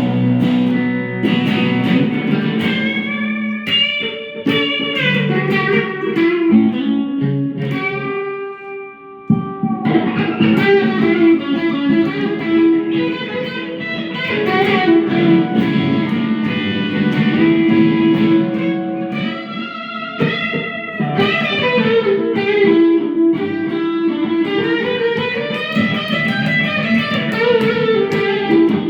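Electric guitar played through a Boss Katana amp feeding a Fender Acoustasonic acoustic amp: a melodic lead with sustained notes and notes bent up and down. A ringing chord fades out about nine seconds in, and the playing picks up again right after.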